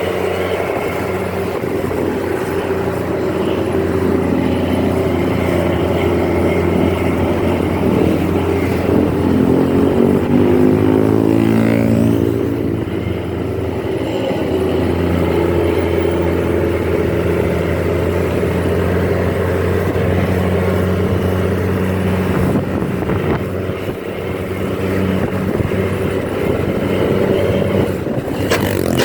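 Tour bus engine running under way with a steady drone. About eight seconds in, its pitch climbs for a few seconds as it revs up, then drops back near the twelve-second mark.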